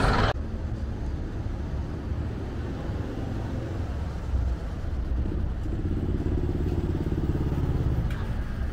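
Street traffic with a steady low rumble, and a small motor scooter's engine passing close by in the middle.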